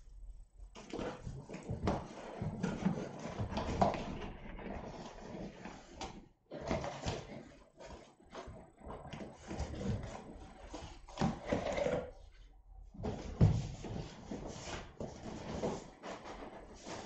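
Cardboard boxes being handled: a printed inner box sliding out of a plain cardboard outer box, with irregular rubbing and scraping of cardboard and light knocks on the wooden floor.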